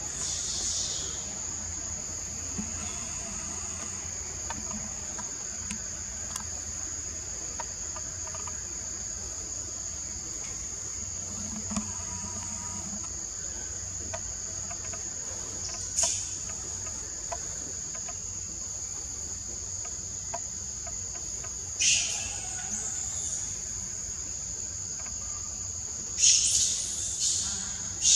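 Steady high-pitched insect chorus of the forest, with a few short, sharp high calls breaking through about 16, 22 and 26 seconds in.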